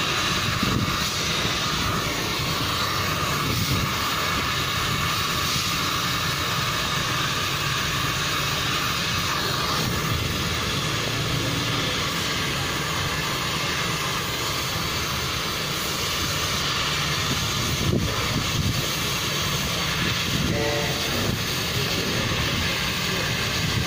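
Oxy-fuel cutting torch hissing steadily as it cuts through a steel hydraulic cylinder, with oil inside the cylinder burning at the cut.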